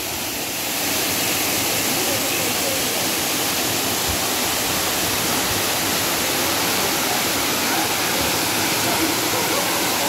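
Steady rushing noise of a large waterfall pouring down a rock face into its plunge pool, even throughout.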